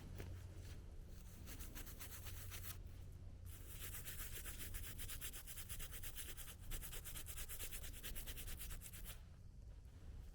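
Rapid, scratchy rubbing as dirt is cleaned off a freshly dug small button, with a short pause about three seconds in and stopping near the end.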